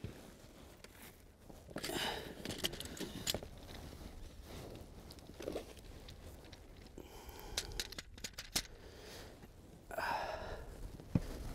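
Dry reed stalks rustling and crackling in irregular bursts as they are pushed through and handled, with a few sharp clicks.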